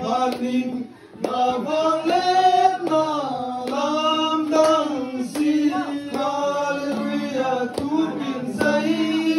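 Voices singing a chant-like song, with long held notes over a steady low tone and a short break about a second in.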